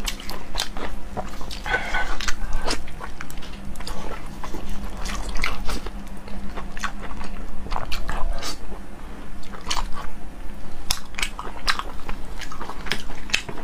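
Close-miked eating: a man biting, sucking and chewing pieces of fish in red sauce, with many wet lip smacks and mouth clicks at an uneven pace.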